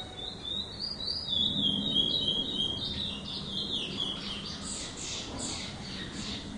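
Curió (chestnut-bellied seed finch) singing: a run of quick warbled notes, then a series of fast whistles sweeping sharply downward in pitch near the end.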